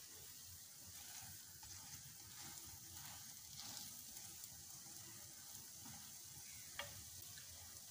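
French toast frying in oil in a nonstick pan over a low flame: a faint, steady sizzle. A slotted spatula pressing on the slices gives a single light click near the end.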